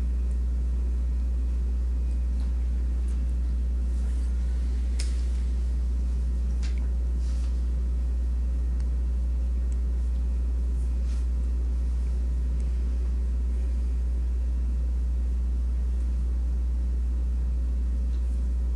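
A steady low electrical hum, with faint room noise and a few faint clicks around five, seven and eleven seconds in.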